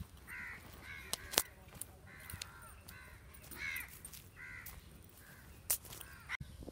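Crows cawing repeatedly, a series of about eight or nine harsh caws less than a second apart, with a couple of sharp clicks in between.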